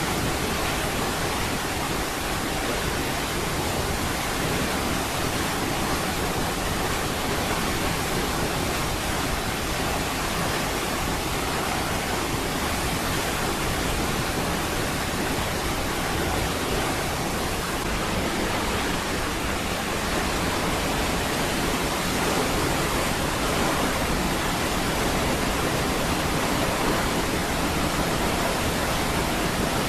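Niagara Falls: a large waterfall's heavy, steady rush of falling water, an even wash of noise without breaks or changes.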